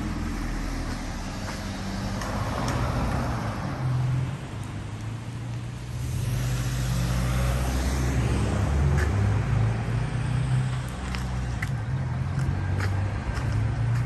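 Motor vehicle traffic: engines running with road noise, swelling louder about six seconds in.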